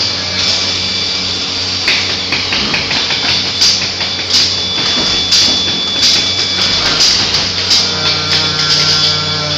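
Factory-floor din: a steady machinery hum under frequent irregular metallic clicks and clatter from work going on around the trailer.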